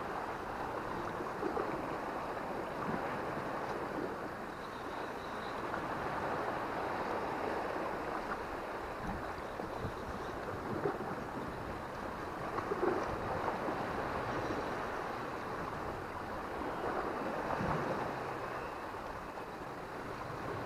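Sea surf washing steadily over rocks, with a little wind on the microphone.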